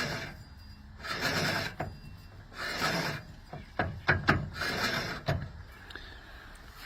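A riding mower's hydrostatic transmission being turned over, giving a rough rasping grind that swells and fades about every second to second and a half, with a few sharp clicks. It is a poor-sounding hydro, though it has oil in it.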